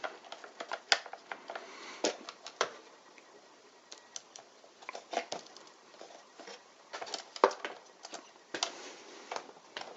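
Irregular light clicks and taps of hard objects being handled, a few sharper knocks among them, over faint room hiss.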